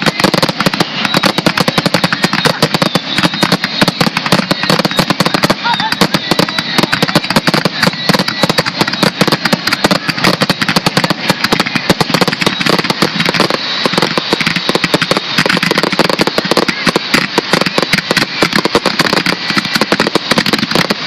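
Fireworks finale barrage: a continuous, rapid string of bangs and crackles from many aerial shells firing and bursting at once, with no pause.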